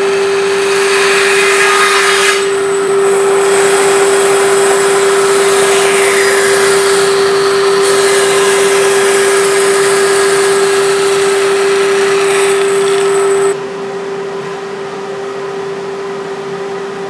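Bandsaw running with a steady hum while its blade cuts through a walnut block. The cutting noise stops abruptly about three-quarters of the way through, leaving the saw running noticeably quieter.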